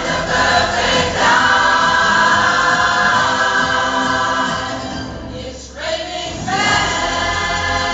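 Pop choir singing together, holding long chords. The voices thin out briefly about five seconds in, then come back in full.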